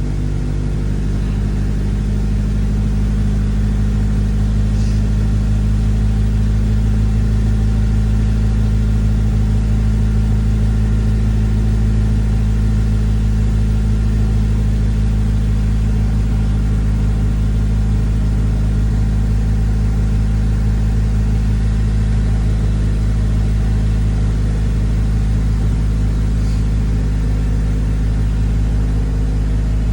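A 2004 Honda Civic Si's 2.0-litre K-series four-cylinder engine idling steadily, with Seafoam treatment in its oil and fuel to clean out deposits.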